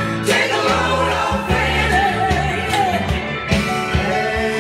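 A recorded song with a singer over a band, played back loud through loudspeakers driven by a Dynaco ST-35 tube amplifier.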